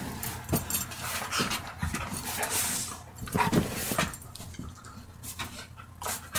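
Two dogs play-fighting and mouthing each other: panting and short dog vocal sounds in irregular bursts, quieter in the last couple of seconds.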